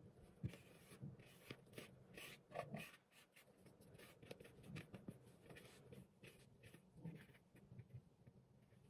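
Near silence, with faint scattered clicks and light scraping.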